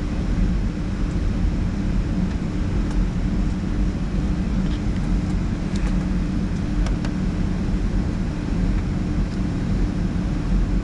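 Cabin noise inside a Boeing 757 taxiing: a steady low engine drone with a constant hum and air hiss, and a few faint clicks.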